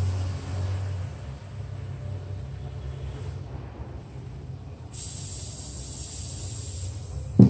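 Butane gas hissing out of a refillable BIC lighter for about two seconds, starting sharply past the middle, as the filling wire is worked in its valve; a single loud thump follows near the end.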